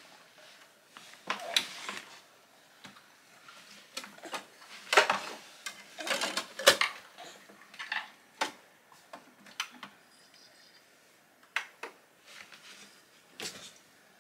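Irregular clicks and clatter of CDs and plastic CD cases being handled on a shelf, the loudest knocks about five and seven seconds in.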